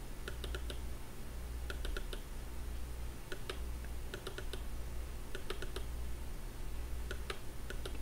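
Computer mouse clicking in small groups of two to four quick clicks, over a faint steady low hum.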